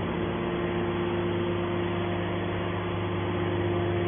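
Hydraulic scrap metal baler's power unit running steadily: a constant machine hum with a few steady tones and no change in pitch.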